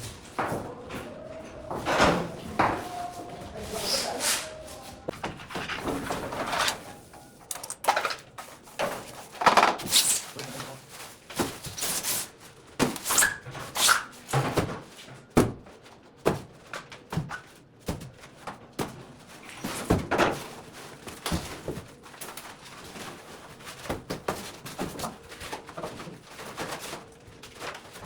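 Irregular knocks and thumps, roughly one a second, with brief voices near the start.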